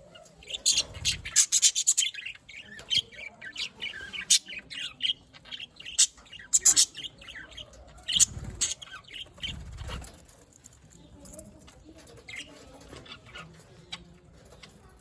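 Pet budgies chirping and squawking in quick, busy bursts, thinning out after about ten seconds. A few low bumps come about a second in and again around eight and ten seconds.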